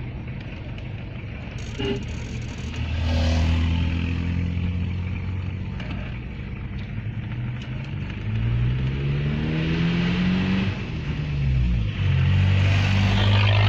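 Motor vehicle engine running while driving, its pitch climbing steadily from about eight to eleven seconds in. Near the end a truck passes close by, and the engine sound dips and drops in pitch before settling louder.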